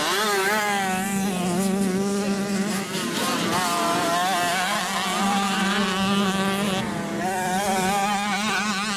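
Motocross bike engines buzzing at high revs, their pitch rising and falling quickly as the riders work the throttle.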